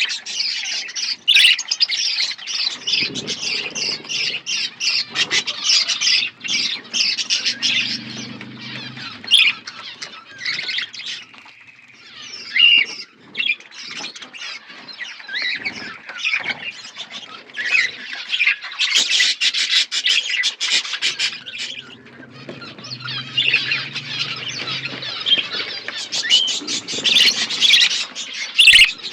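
A flock of budgerigars chattering, a dense run of rapid high chirps and squawks that thins out for a few seconds in the middle.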